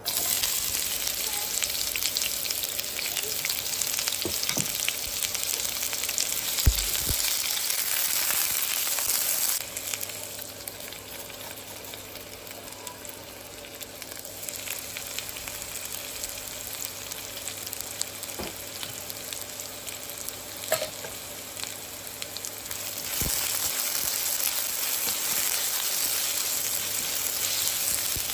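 Sliced onion frying in hot oil in a nonstick wok, a steady sizzle that starts at once as the onion goes in. The sizzle is loudest for the first ten seconds, quieter through the middle and picks up again near the end, with a few knocks from a spatula stirring the pan.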